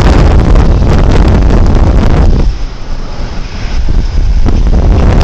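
Loud wind buffeting on the microphone over the low rumble of road-construction machinery. It eases for about two seconds midway, then comes back at full strength.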